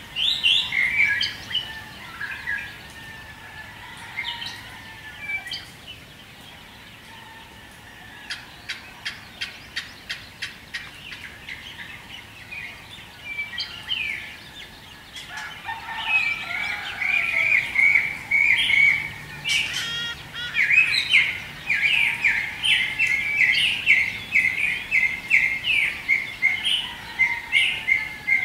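Songbirds chirping in a dawn chorus, many short high notes. Sparse early on, with a quick run of ticking notes about nine seconds in. From about sixteen seconds on, a busy stream of rapidly repeated chirps.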